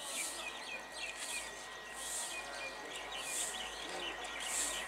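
Birds chirping, with a high hissy call repeating about once a second over busier small chirps.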